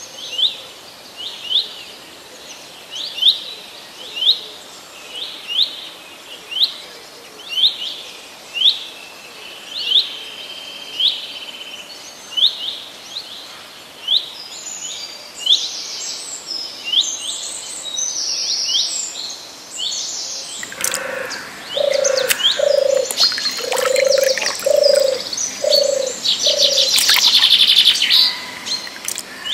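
Birds calling: one bird repeats a short rising chirp about once a second, then more varied high chirping follows. About two-thirds of the way in, a dove joins with a series of about seven low cooing notes. A few clicks come near the end.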